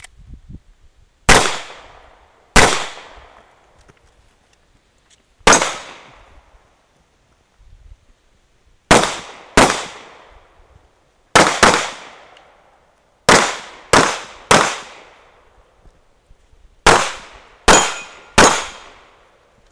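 Pistol shots from a CZ 75 SP-01 9 mm pistol during an IPSC course of fire: thirteen shots in an uneven string, some fired in quick pairs, with pauses of one to three seconds between groups. Each shot is sharp and rings out in a brief echo.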